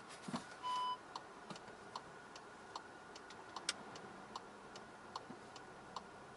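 Skoda Superb's turn-signal indicator ticking steadily in the cabin, about two or three ticks a second. A single short electronic beep from the car sounds less than a second in, and one sharper click comes about halfway through.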